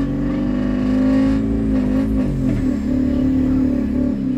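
Interior drone of a Scania N230UD OmniCity double-decker bus's diesel engine, heard from inside the passenger saloon while the bus is under way. The engine note is steady, then its pitch wavers and shifts around halfway through before settling again.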